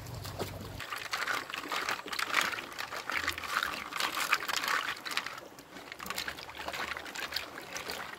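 Water sloshing and splashing in a small two-handled wok as a hand stirs golden apple snails around to wash them, a dense patter of small splashes and clicks that is busiest in the middle and eases near the end.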